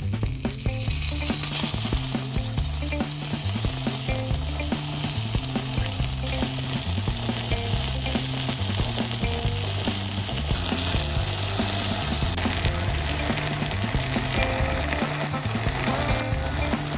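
Thick-cut bacon sizzling and crackling hard on a thick iron griddle, a dense steady spitting of fat, with low steady tones stepping in pitch underneath.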